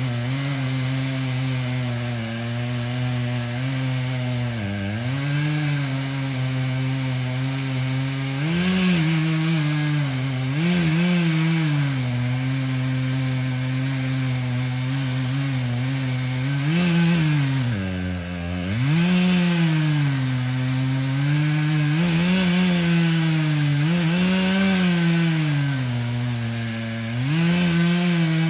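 Chainsaw running at high throttle while cutting wood. Its engine pitch drops sharply several times as the chain bogs in the cut, then climbs back, with bursts of cutting hiss.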